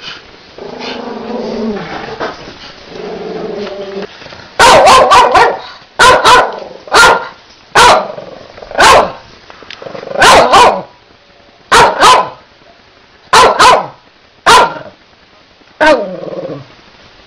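A small long-haired puppy barking in play: about fifteen loud, sharp barks, some in quick pairs, starting about four and a half seconds in. The barks are preceded by a few longer, lower-pitched sounds from the puppy, and the last bark trails off lower.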